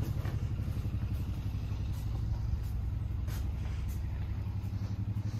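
Electric horse clippers running with a steady low buzz, with a few faint clicks about halfway through.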